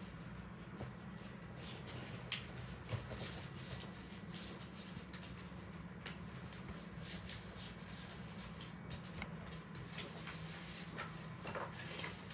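Paper being handled: light rustling and small taps and clicks of a rolled paper tube and a taped paper model, over a steady low hum.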